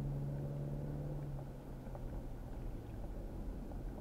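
Car cabin noise while driving along a paved road: steady low engine and tyre rumble, with a low steady hum that fades away about a second and a half in.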